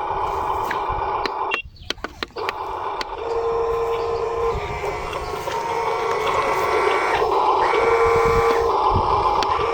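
Small electric motors and gearing of RC construction models whirring, with a brief break and a few clicks about two seconds in. Steady whining tones start and stop several times as the motors work.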